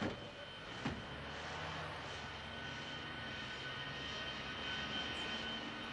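Aircraft engines running steadily, a continuous drone with a thin high whine, with a short knock about a second in.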